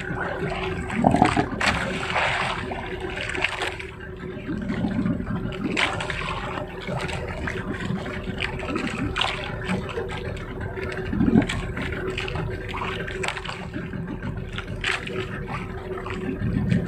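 Water sloshing and splashing around a small outrigger fishing boat. A steady hum runs underneath, with irregular knocks and muffled voices.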